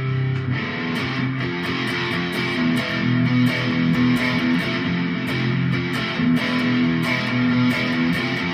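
Chapman electric guitar played by a beginner, strumming sustained chords that change every second or so.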